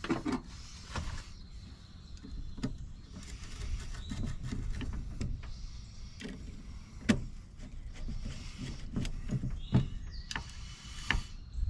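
Small metal lock parts and screws being handled: scattered light clicks and taps, a few sharper ones spread through, over a low rustle of handling.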